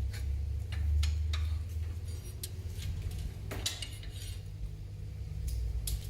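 Metal tools and engine parts clinking as they are handled during cylinder head work: irregular light clinks, the loudest one a little past halfway, over a steady low hum.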